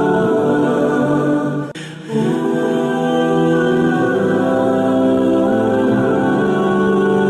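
Slow background music of wordless, choir-like voices holding long notes, with a brief dip in level about two seconds in.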